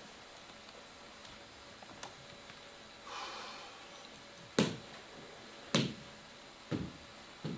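A man coughing four times, about a second apart, in the second half; each cough is short and sharp, and the first is the loudest. A softer, drawn-out throat sound comes about three seconds in.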